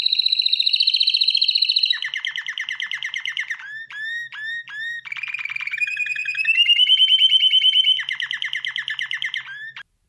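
Domestic canary singing a continuous song of rapid rolled trills that change from one phrase to the next every second or two, with a handful of separate short swooping whistles in the middle; the song stops just before the end.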